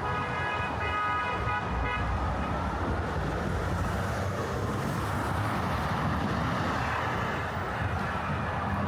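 City street traffic. A vehicle horn is held for about two seconds at the start, over a steady low rumble of passing traffic that carries on after it stops.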